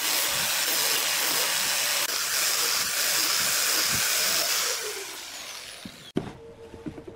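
A woodworking power tool runs with a steady, loud hissing rush, then winds down with a falling whine about five seconds in. After an abrupt break near the end, a faint steady hum and a few small clicks remain.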